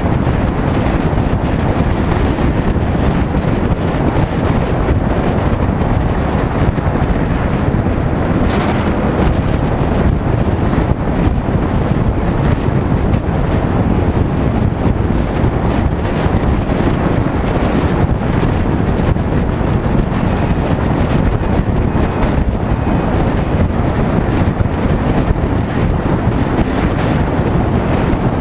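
Loud, steady wind rushing over the microphone of a camera on a moving motorcycle at cruising speed, with road and engine noise blended underneath.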